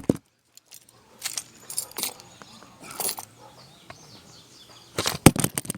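Irregular clatter of small hard objects: clusters of sharp clicks and jangles, loudest near the end.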